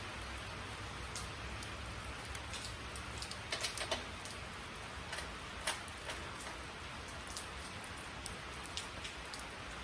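Light, irregular metallic clicks of a 10 mm wrench on the bumper-strip bolts and washers, a few close together about three and a half seconds in and another near six seconds, over a steady hiss and low hum.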